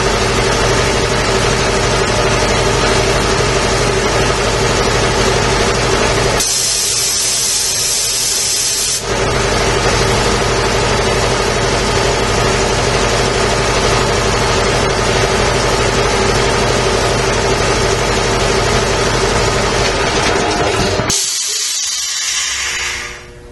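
Quincy QR-325 piston air compressor running steadily. About six seconds in, the 220-volt electronic tank drain opens for a couple of seconds with a loud hiss of air purging condensate from the tank. Near the end the compressor stops and another hiss of air sounds, then fades.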